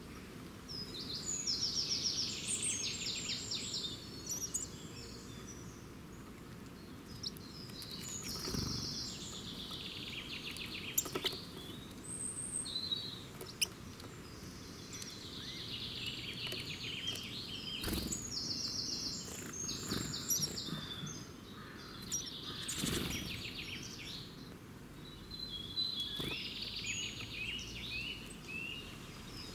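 Songbirds singing: high, fast-trilled song phrases about two to three seconds long, repeated every several seconds, over a steady low outdoor rumble.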